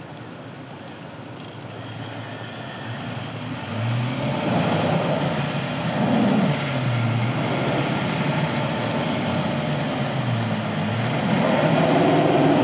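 A motor working under changing load, its pitch sagging and rising several times. It starts up about four seconds in after a quieter stretch, as the stuck vehicle and trailer are hauled up a snowy boat ramp.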